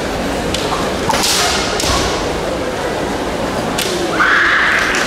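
Kendo match sounds on a wooden gym floor: a few sharp cracks of bamboo shinai strikes and stamping, the loudest about a second in, ringing in the large hall. About four seconds in comes a long high kiai shout.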